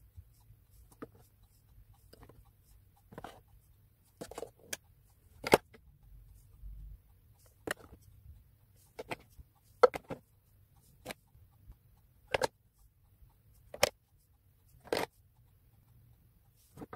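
Plastic makeup packaging (lipstick tubes, compacts and pots) being handled and set down in drawer organizers: irregular clicks and clacks, about one a second, some sharper and louder than others.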